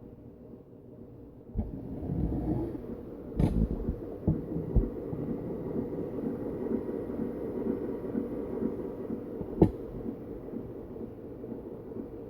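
Fisher-Price 825 children's record player: the needle comes down onto the record with a thump about a second and a half in. Then comes a steady low rumble and surface noise from the turning record's lead-in groove, with a few sharp clicks and pops.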